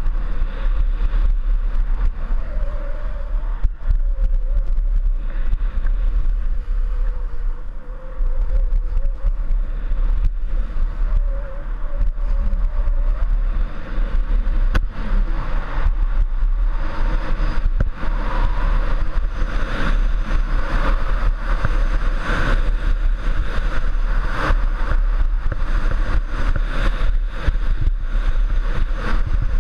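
Wind buffeting the microphone as a skier runs down a groomed slope, a heavy steady rumble, with the hiss and scrape of skis on packed snow growing louder from about halfway through as the skier picks up speed.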